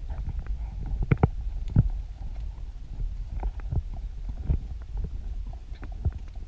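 Low rumbling noise on a horse-mounted camera's microphone as the horse walks on sand, with irregular soft knocks from its hoof falls and tack; the loudest knocks come about a second in.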